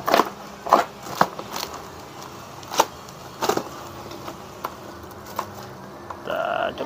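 A knife blade slitting the clear plastic stretch wrap around a cardboard parcel, giving sharp, short crackles and rustles of the plastic at uneven moments. Near the end there is a brief squeak.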